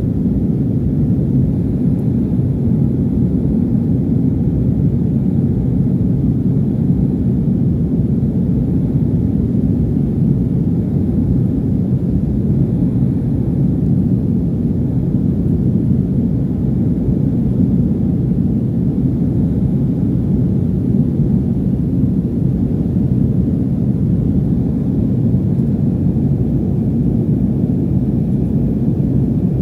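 Airliner cabin noise in flight: the steady low rumble of the engines and airflow heard from a window seat.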